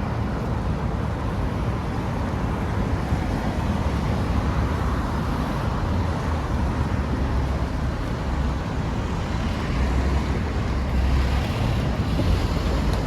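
Steady city street traffic noise with wind rumbling on the microphone, a vehicle passing a little louder near the end.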